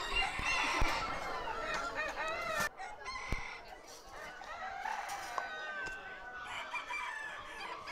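Many caged chickens clucking and crowing together, busiest in the first few seconds, with a couple of sharp clicks as plastic water cups are pulled from the cages.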